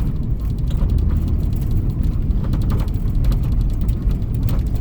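Steady, loud low rumble with no speech.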